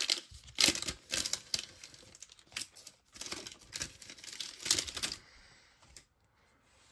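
Plastic trading-card pack wrapper being torn open and crinkled, a run of short rustles and rips that stop about five seconds in.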